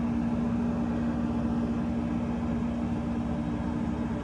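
30-ton Addison rooftop HVAC unit running with a compressor on: a steady mechanical hum with a constant low droning tone.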